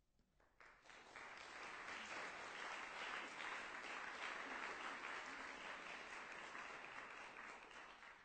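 Audience applauding. The clapping starts about half a second in, swells within a second, holds steady, and dies away near the end.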